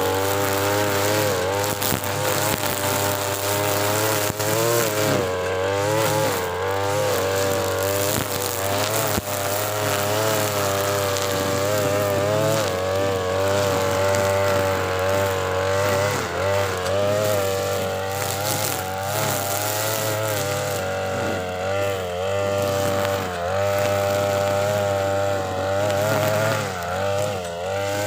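TB43 two-stroke brush cutter with a trimmer head running at full throttle through thick grass. Its engine pitch keeps wavering, dipping as the dense grass loads it and picking up again, with deeper dips in the second half.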